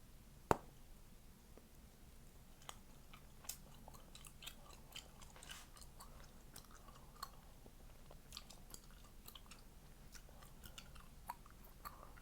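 Chewing gum worked close to the microphone, with many small irregular wet clicks and snaps. One sharp, much louder gum pop comes about half a second in.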